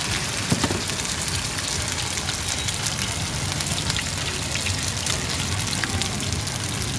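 Oil sizzling and crackling steadily as round chive-flecked dough cakes shallow-fry in a large flat griddle pan, with one brief knock about half a second in.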